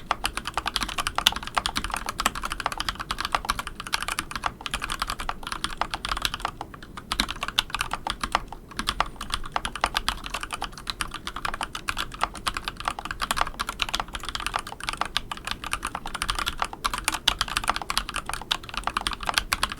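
Fast continuous typing on a mechanical keyboard with modded linear switches: Gateron Keyfirst Cream housings with Kailh Burgundy Pro stems, in a hot-swap board with an aluminium plate. The keystrokes are clacky, with a sharp bottom-out and brief pauses twice near the middle.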